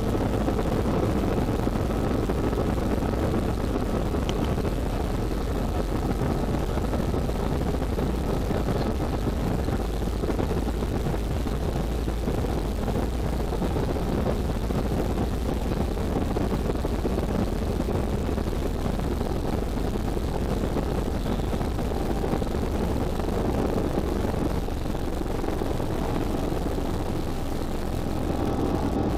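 Airliner's turbofan engines at takeoff thrust heard inside the cabin: a steady, loud roar with a faint whine, over the rumble of the wheels on the runway. The low rumble eases near the end as the plane lifts off.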